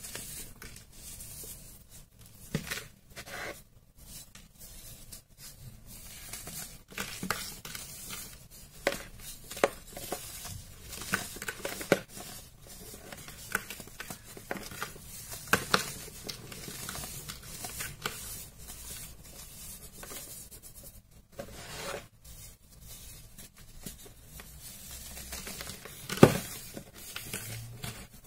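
Hands crushing and crumbling a moulded block of baking soda: a continuous gritty crunching and rustling of powder squeezed between the fingers, broken by many sharp cracks as chunks snap off, the loudest crack near the end.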